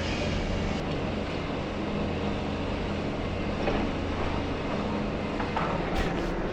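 Diesel engine of a high-reach demolition excavator running with a steady drone while it works, with a few sharp knocks near the end.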